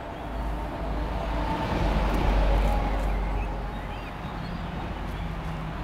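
Freight train of container wagons rolling past on the track, a steady low rumble of wheels and wagons that swells to its loudest about two seconds in and then eases off.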